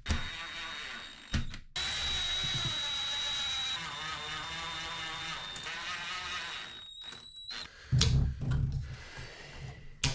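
Cordless drill running in two long runs with a high motor whine, driving screws through the shower surround into the studs. A few heavy knocks follow near the end.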